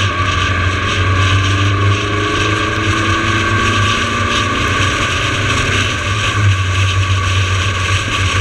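Car driving at speed: steady engine and tyre noise with wind on the microphone.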